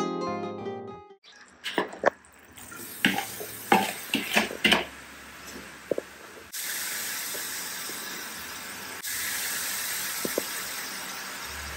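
A few clinks and knocks of a bowl and kitchen utensils, then a steady sizzle of ground beef frying in an aluminium wok on a gas stove, which gets louder partway through.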